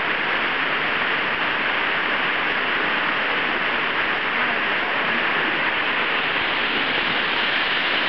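Waterfall rushing steadily and loudly, heard from close behind the curtain of falling water.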